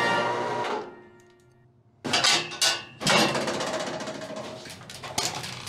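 Music ending in the first second. After a second of near silence, a galvanized sheet-metal door is banged open with several sharp clanks, the loudest about three seconds in, ringing on in a concrete stairwell, with more knocks near the end.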